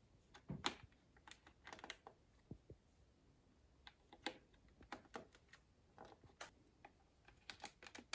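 Faint, irregular small clicks and taps of RCA plugs being pushed into the plastic AV jacks of a VHS camcorder while its cables are handled.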